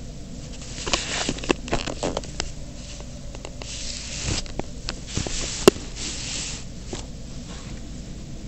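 Felt-tip marker scratching across paper in a few short runs of strokes, with small handling clicks and one sharp click a little before the six-second mark.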